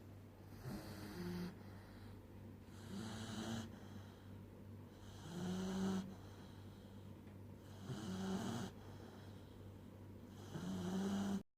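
A puppy snoring in its sleep: five snores about two and a half seconds apart, each lasting about a second.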